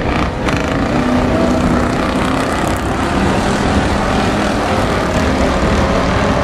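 A pack of dirt-track stock cars racing around the oval, their engines blending into a loud, steady drone.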